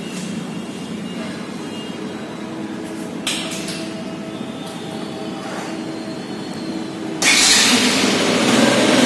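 Steady mechanical hum with a single knock about three seconds in. About seven seconds in, a much louder rushing mechanical noise starts suddenly.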